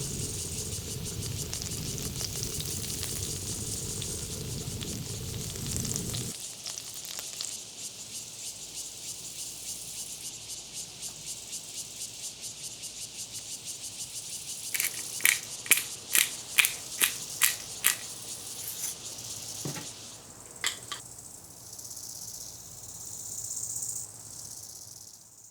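An egg frying in oil in a pan, sizzling with crackles and small pops, over a low hum that cuts off suddenly about six seconds in. Past the middle comes a run of about eight sharp taps or clicks, two or three a second. Near the end the sizzle swells, then fades out.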